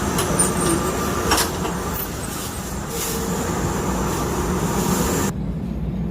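Semi-automatic walnut-cake machine running: a steady mechanical rumble and hum with a few sharp clicks. The higher part of the sound cuts away abruptly about five seconds in, leaving the low rumble.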